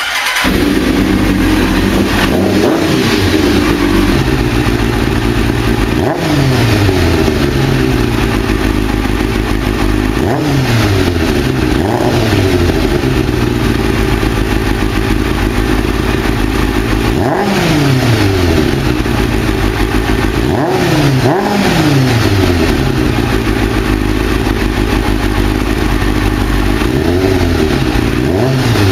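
Kawasaki ZZR600 inline-four motorcycle engine breathing through a Two Brothers M2 bolt-on silencer, revved over and over. The pitch climbs and drops back several times.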